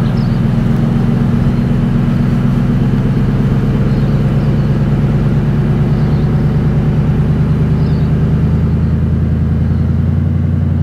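Toyota FJ Cruiser's V6 engine running steadily under throttle while the vehicle strains against a tow strap in soft sand, a loaded pull; the note deepens slightly near the end.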